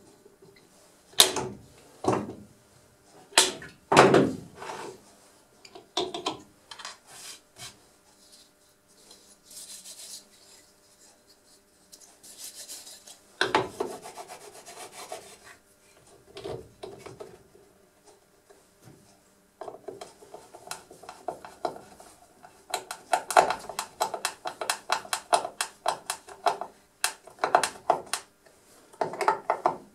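Thin wooden strips and a wooden disc being handled and shifted by hand: irregular knocks and clatter of wood on wood, with rubbing and scraping, and a long run of quick clicks in the second half.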